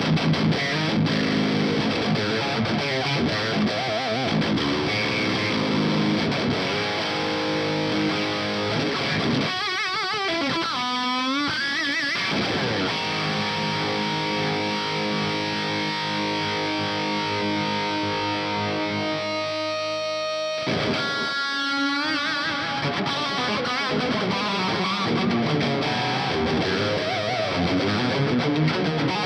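Seven-string electric guitar in drop G sharp played through a modified Marshall JCM 900 SL-X amp, boosted by a Fortin Blade overdrive, with high-gain distortion from a 4x12 cabinet: heavy, tight riffing. It has sliding, bending notes about ten seconds in and again about twenty-one seconds in, with held notes in between.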